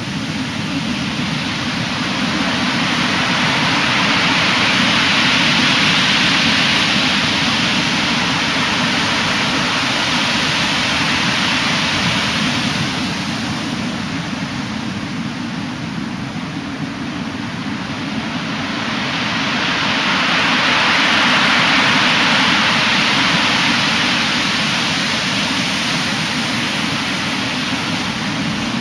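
Heavy typhoon-driven surf: a continuous roar of big breaking waves and rushing water, swelling louder twice, a few seconds in and again about two-thirds through.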